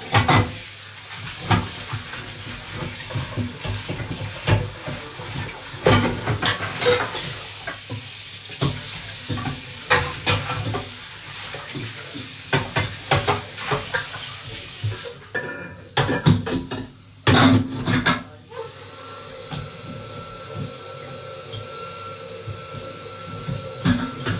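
A metal utensil stirring and scraping in a frying pan, with repeated clinks and knocks against the pan over the hiss of food sizzling. The sizzling fades about two-thirds of the way through and a steady hum takes over.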